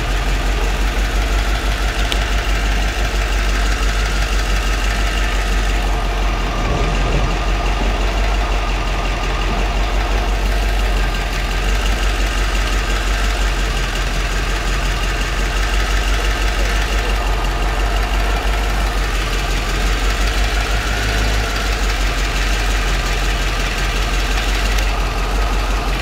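1992 Corvette's V8 engine idling steadily with a miss: the idle is not smooth, the sign of a misfire that has not yet been traced.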